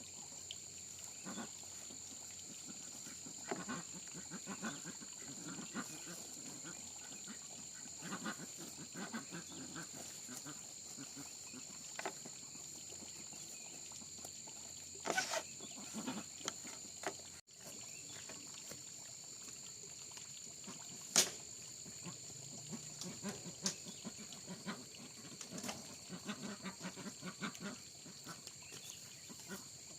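Faint farmyard sound: a steady high insect drone with scattered short calls from farm animals and a few sharp knocks.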